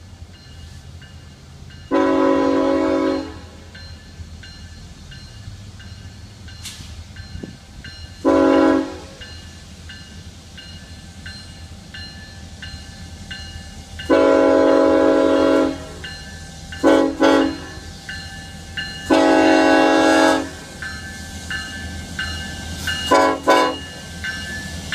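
Air horn of a Florida East Coast freight locomotive sounding for a grade crossing: six blasts, long ones about two, fourteen and nineteen seconds in, shorter ones between, including a quick double. Underneath run the steady ring of the crossing bell and the low rumble of the slow-moving diesel train.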